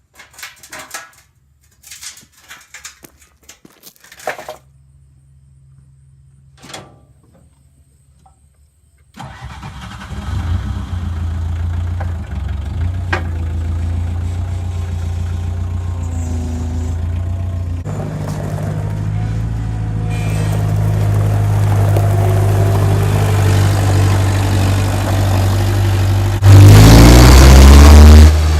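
Bobcat skid-steer loader engine starting about a third of the way in after scattered knocks, then running steadily and growing louder. Near the end it revs hard for about two seconds, its pitch rising.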